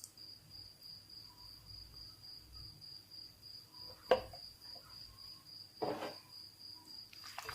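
A cricket chirping steadily as a high, pulsing trill, with two short knocks about four and six seconds in, the first sharper and louder.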